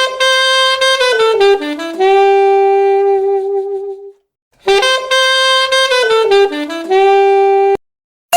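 Huawei Honor 9A ringtone: a short jazzy saxophone melody that steps down to a held low note. The phrase plays twice, with a brief silence between.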